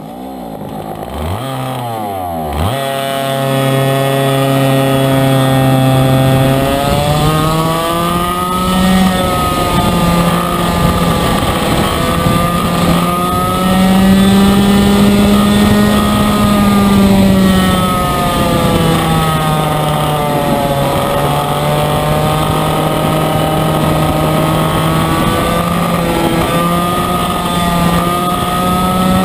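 A 100cc racing kart engine heard from on board, running under load as the kart drives the course. Its pitch sweeps up and down in the first couple of seconds, then climbs and falls again and again as the throttle is opened on the straights and eased for the turns.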